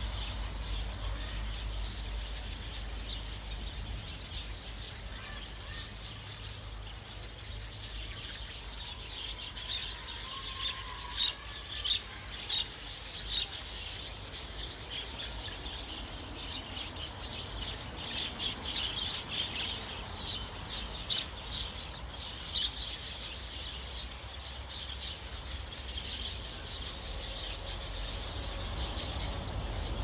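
A flock of green budgerigars chirping and chattering, many quick high chirps overlapping, busiest and loudest through the middle stretch.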